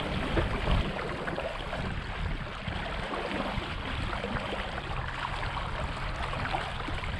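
Water washing and trickling against a kayak, a steady crackly wash with a low rumble underneath.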